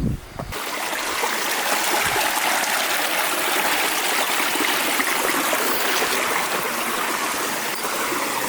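Stream water running over rocks in a gorge, a steady rushing that starts abruptly about half a second in.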